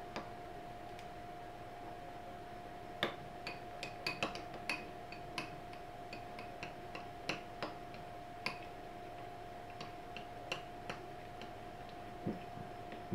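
A spoon clicking and tapping irregularly against a glass mixing bowl while stirring slime, starting about three seconds in, over a faint steady hum.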